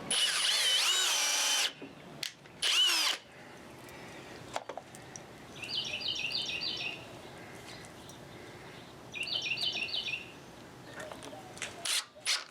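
Drill motor whining as it drives a wood screw into hard purpleheart: one run of about a second and a half with the pitch rising partway, then a second short burst. Later, two brief runs of rapid high ticks.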